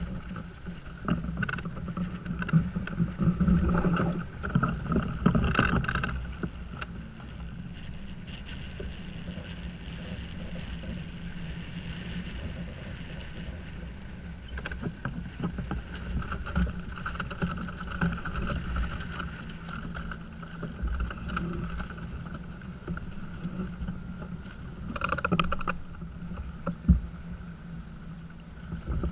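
Water rushing along the hull of a small sailing yacht under way, with wind buffeting the microphone as a low rumble. The noise surges louder a few seconds in and again near the end, and a single sharp knock comes just before the end.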